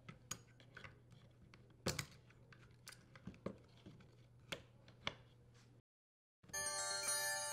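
Pliers clicking and snapping on the metal pinch clamp of a Whirlpool dishwasher circulation pump's rubber elbow hose as the clamp is broken off: a scatter of light clicks and taps, the sharpest about two seconds in. After a brief silence near the end, a steady electronic tone begins.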